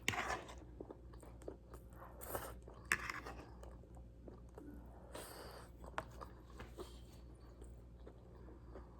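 A person chewing food, faint, with scattered short mouth noises and soft clicks.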